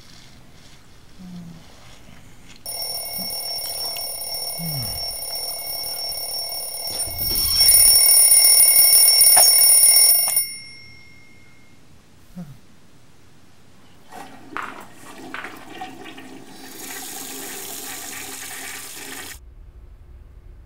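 Bell alarm clock ringing steadily for several seconds, louder in its last few seconds, then cut off abruptly about ten seconds in as a hand slaps it. A few seconds later comes a stretch of rushing noise that stops abruptly.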